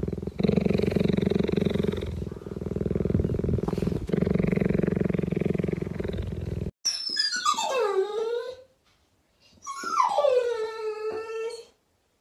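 A cheetah purring steadily in a fast pulse, with a short dip between breaths about every two seconds. After a cut, a pit bull-type dog gives two long whining howls, each sliding down in pitch, one around the middle and one near the end.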